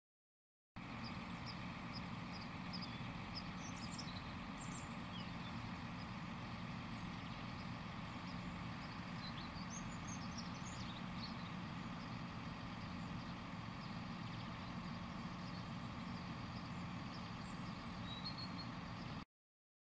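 A tipper truck's engine idling steadily, a low even hum, with a few faint bird chirps over it.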